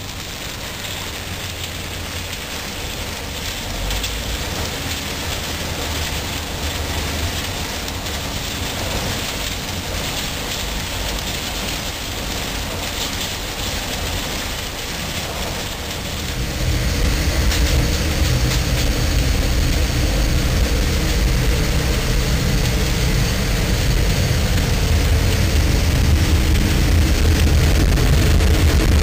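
Asphalt plant drying drum and its feed conveyor running, a steady mechanical rumble with a hiss. About halfway through, the rumble grows louder and deeper.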